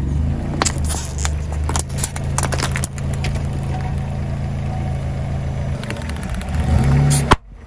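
Car tyre rolling slowly over plastic ping pong balls, crushing them with a series of sharp cracks in the first few seconds, over the steady hum of the car's idling engine. A louder knock comes near the end, then the sound cuts off suddenly.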